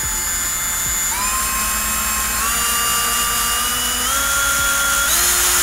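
Makita RP2300-series plunge router motor running with a steady high whine that steps up in pitch about five times, jumping to each new speed rather than gliding, as its speed is turned up.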